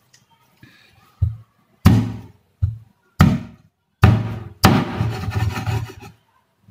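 Meat cleaver chopping through a raw whole chicken, cutting off a leg, and striking the wooden cutting board underneath: five hard chops about two-thirds of a second apart, then over a second of rapid rattling knocks.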